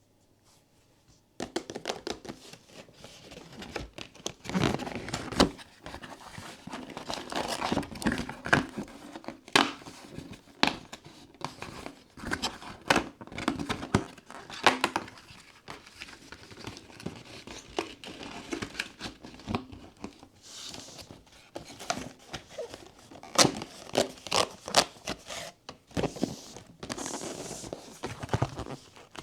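Blind-box toy packaging being handled: plastic and paper crinkling and tearing, with many sharp taps and clicks on the boxes, starting about a second and a half in.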